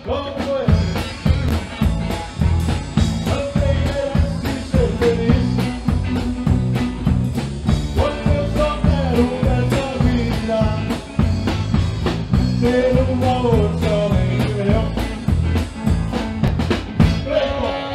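Live samba rock band playing: drum kit and bass keep a steady, dense beat under guitar, and a singer carries the melody over it.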